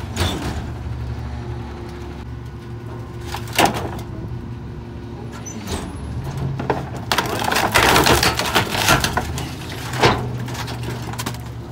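Garbage truck engine running steadily while its compactor crushes bulky furniture, with sharp cracks and snaps and a long loud burst of crunching and splintering about two-thirds of the way through.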